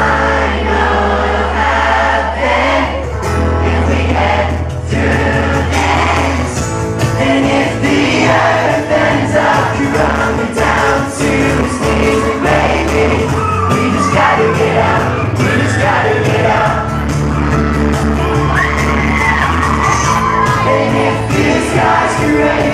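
Live pop-rock band playing: a male lead vocal sung over strummed acoustic guitar, with a steady bass line underneath.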